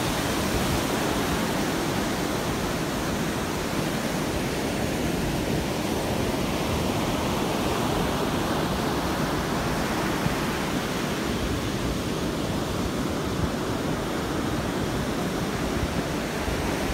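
Ocean surf breaking and washing up a sandy beach: a steady, unbroken rushing hiss.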